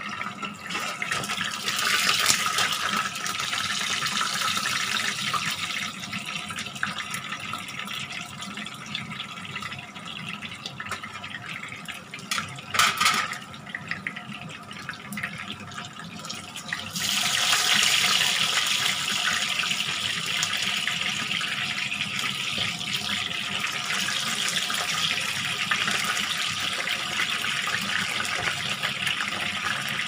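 Chicken pieces sizzling in hot oil in a frying pan, the sizzle growing louder a little past halfway as the pieces are turned with tongs. A brief clatter comes near the middle.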